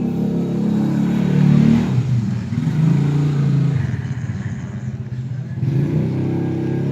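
An engine running, its speed shifting up and down a few times.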